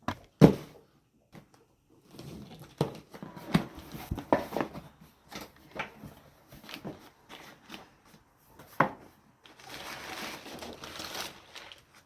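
Packaging being handled and opened: crinkling and tearing with scattered sharp clicks and knocks, a longer stretch of rustling near the end.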